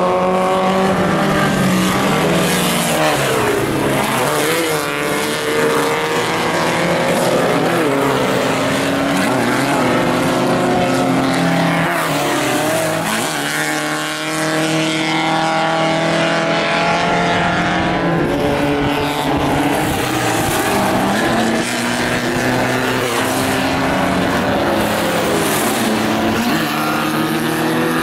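Engines of several Super 1600-class off-road race buggies running hard as they race past, several engine notes overlapping. Their pitch rises and falls with the throttle, with a brief dip about halfway through.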